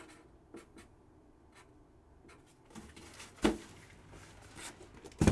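Sports card boxes and packs being handled on a table: soft rustling and small clicks, with two sharper knocks, about three and a half seconds in and again near the end.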